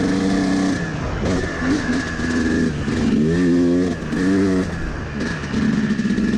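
Yamaha YZ250 two-stroke dirt bike engine under hard riding, revving up and dropping back several times with the throttle, then holding a steadier pitch near the end.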